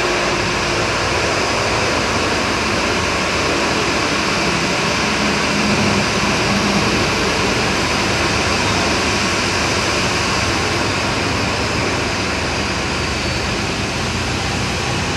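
Boeing 737-800's CFM56-7B turbofan engines running at idle thrust as the jet taxis slowly in to the gate, a steady high whine over an even rush.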